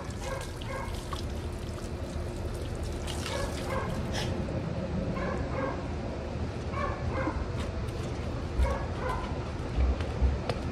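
Dogs barking and yipping in short calls scattered through, over a steady background hiss.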